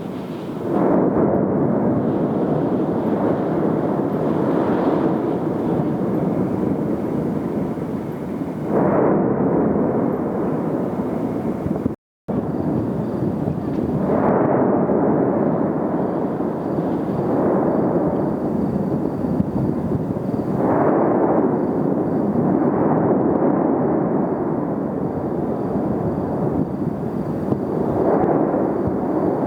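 Cumbre Vieja volcano erupting: a continuous rumble that swells every few seconds. It drops out briefly about twelve seconds in.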